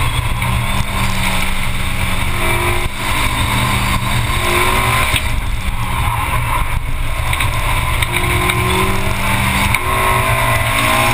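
Honda S2000's inline-four engine revving up and down while driven hard through an autocross course, its pitch rising and falling several times. A steady low rumble of wind on the outside-mounted camera runs underneath.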